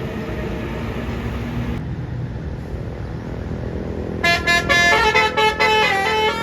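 A bus engine runs with a low rumble. About four seconds in, a telolet horn, a multi-tone musical air horn, sounds a quick run of changing notes and becomes the loudest thing heard.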